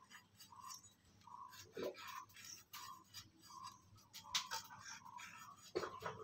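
Pointed gourd (potol) skin being scraped off against the steel blade of a boti: quick repeated scraping strokes, two or three a second, with a sharper click about four seconds in and another near the end.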